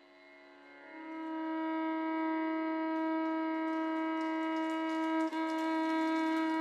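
Instrumental music: a wind instrument holds one long, steady note that swells in about a second in, with a brief dip near the end.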